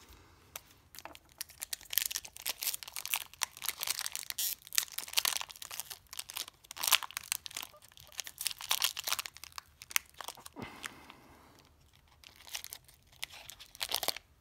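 Foil Pokémon card booster pack wrapper crinkling and tearing as it is worked open by hand. A long stretch of crackling from a second or two in is followed by a quieter gap, then another burst near the end.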